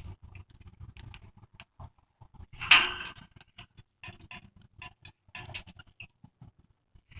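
Pet birds pecking and cracking seeds at a food bowl, a quick, irregular run of small clicks and taps, with one louder harsh burst nearly three seconds in as they scuffle over the food.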